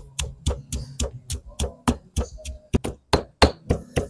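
Stone pestle pounding garlic and salt in a stone mortar, a steady run of about four thuds a second, while making a curry paste.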